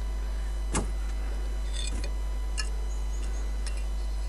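A few light clicks and taps of a steel mason's trowel on mortar and brick tiles while mortar is being scooped and spread, over a steady low hum.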